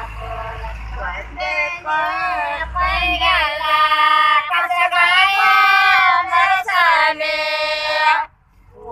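Women singing a Kannada Gauri festival folk song together in high voices, unaccompanied. The singing breaks off briefly near the end, then starts again.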